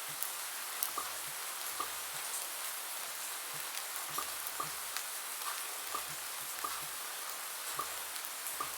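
Bubble-pop sound effects, short sharp pops about twice a second at uneven intervals, over a steady rain hiss.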